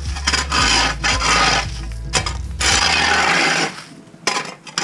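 Long-handled ice scraper scraping wet, icy slush off a concrete walkway in about four long rasping strokes. The strokes stop after about three and a half seconds, leaving a couple of light knocks of the blade.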